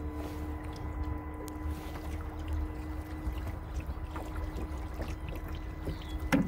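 Small aluminum boat on the water: water lapping and trickling against the hull over a low rumble and a steady hum, with one sharp knock at the very end.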